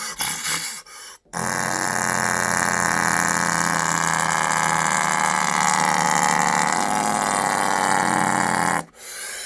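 A man vocally imitating an 18-wheeler's diesel engine coming down a big hill: one long, steady, buzzy drone that starts about a second in and lasts about seven and a half seconds.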